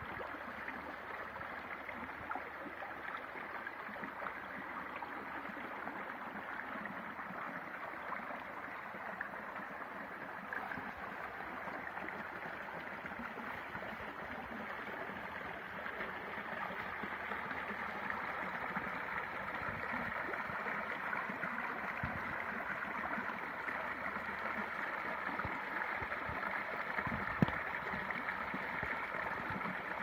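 Shallow mountain stream running over stones: a steady rush of flowing water that grows a little louder about halfway through. A single sharp click stands out near the end.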